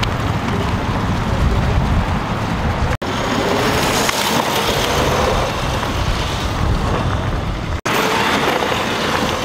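Homemade electric go-kart driving on pavement: a steady rush of tyre and wind noise with low rumble and no engine note. A faint electric-motor whine rises in the middle stretch, and the sound breaks off briefly twice at edit cuts.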